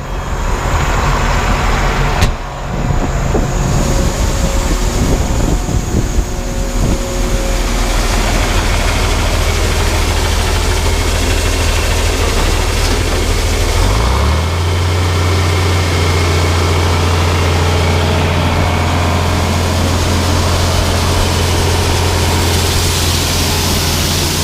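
Grain-hauling truck's engine running during unloading at the grain bin site, with scattered knocks in the first several seconds. About halfway through, the engine steps up to a faster steady speed and holds there.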